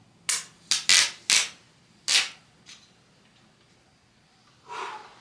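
Handling noise from a Samsung Galaxy S24 Ultra and its S Pen: five quick rubbing, sliding swishes in the first two and a half seconds, a faint one after them, and a softer one near the end.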